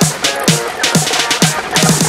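Background electronic dance music with a fast, busy drum beat: deep kick drums and crisp cymbal hits.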